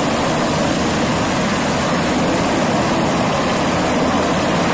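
Navy MH-60S Seahawk helicopter hovering low and moving off, its twin turbine engines and rotor running loud and steady with a fast fluttering beat from the blades.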